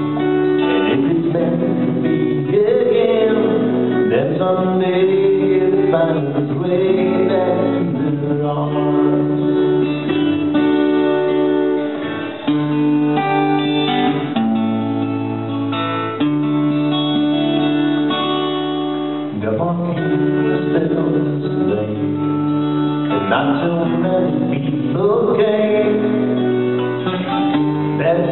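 Live band playing a song: strummed acoustic guitar with electric guitar, the music continuous throughout.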